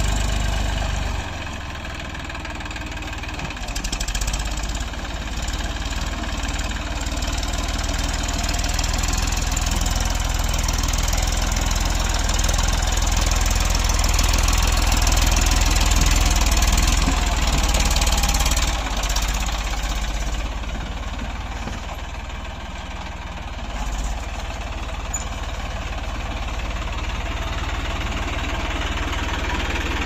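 Eicher 480 tractor's diesel engine running steadily under load while working a rotary implement through a flooded, muddy field.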